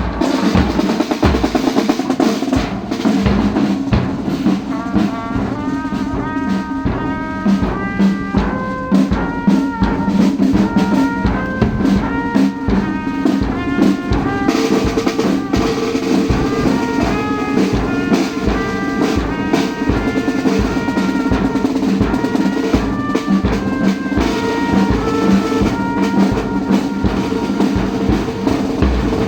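A brass band with drums playing: a melody of short held brass notes stepping up and down over steady low sustained notes, with a dense, constant drum beat.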